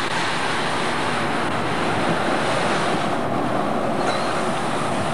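Steady rushing noise of wind on the camcorder microphone, heard through the hiss of old, worn videotape.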